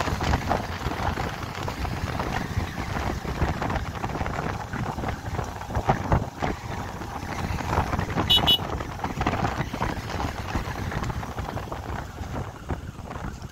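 Wind buffeting the microphone over road noise from a moving vehicle. A brief high chirp sounds a little past halfway.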